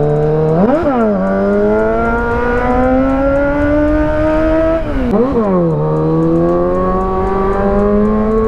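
Kawasaki Z900's inline-four engine under hard acceleration, its pitch climbing steadily as the bike pulls a power wheelie. About a second in the revs spike sharply and fall back, and about five seconds in they spike again and drop as it shifts up a gear before climbing again.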